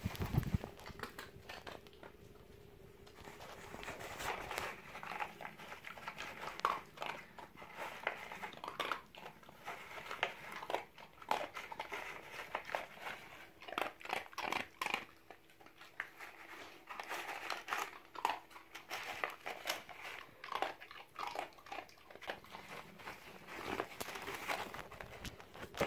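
Cardboard egg carton crinkling and rustling in irregular bursts as a dog noses through it for hidden treats, with short crunches of the dog chewing what it finds.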